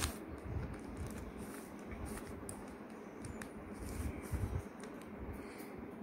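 Stickerless plastic 3x3 Rubik's cube being turned through an algorithm: faint, quick clicks of the layers turning, with soft handling thumps.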